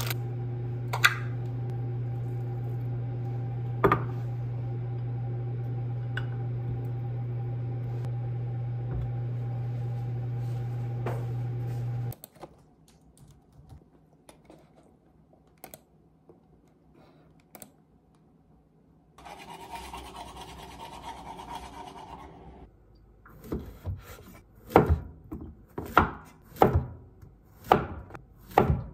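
A steady low hum for about twelve seconds, then a quieter stretch with faint clicks. Near the end a kitchen knife slices a Korean zucchini into rounds on a cutting board, about three knocks every two seconds.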